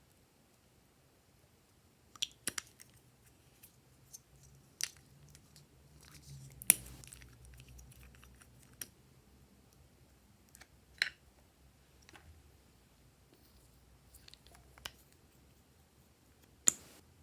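Glossy slime being handled, giving sharp sticky clicks and pops at irregular intervals, about ten in all, with a few louder snaps.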